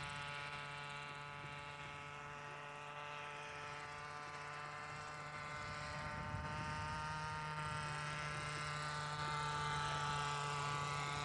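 Radio-controlled scale UH-1 Huey model helicopter in flight, its small engine and rotor making a steady high-pitched whine that grows louder in the second half as it flies closer.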